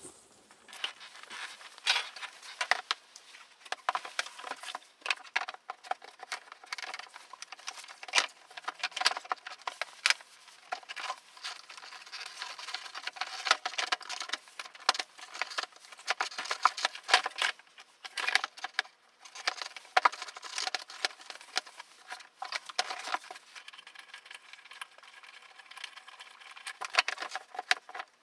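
Irregular clicks, taps and light rattles of small hard objects being handled, with short pauses between flurries.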